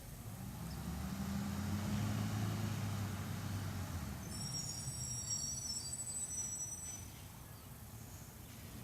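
Natural-gas garbage truck's engine running, swelling to its loudest about two seconds in and then fading away. A few seconds in, several thin high-pitched squeals sound together for about two seconds.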